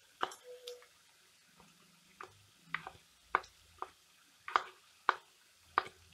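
A utensil clicking and scraping against a frying pan as sliced onions and ginger-garlic paste are stirred in it. About eight sharp knocks come at uneven intervals of roughly half a second to a second, with no sizzle between them.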